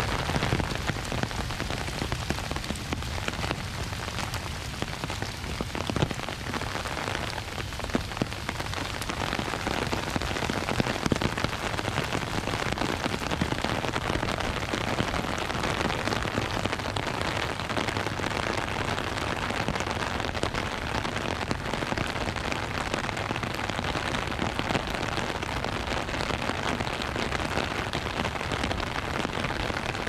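Steady rain falling, with many small drops tapping on an umbrella held overhead.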